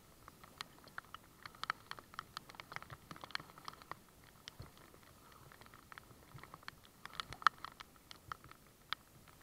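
Raindrops and paddle drips tapping on the camera, an irregular patter of quick sharp ticks with a few louder ones, the loudest about seven and a half seconds in.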